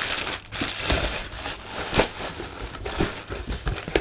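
Bubble wrap and packing being handled in a cardboard box: irregular crinkling and crackling rustles with sharper clicks now and then.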